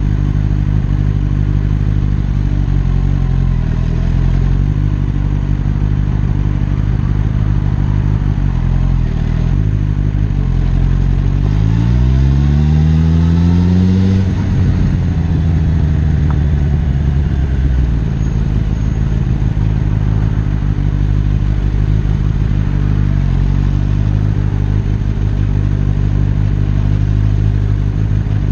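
Suzuki GSX-S1000F's inline-four engine running steadily at low speed. About halfway through, its revs climb in one rising sweep for a couple of seconds, then drop away sharply.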